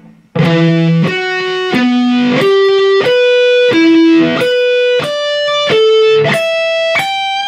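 Electric guitar playing a slow E minor pentatonic octave lick, one sustained note at a time: about eleven notes in three-note groups that climb from the 12th fret of the low E string to the 15th fret of the high E string, the last note held.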